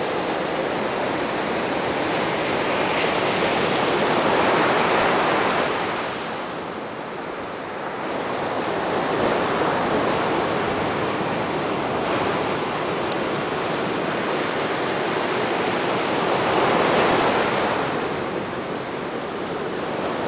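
Atlantic Ocean surf breaking and washing on the beach, swelling and ebbing in slow waves, about two big surges, with some wind rumbling on the microphone.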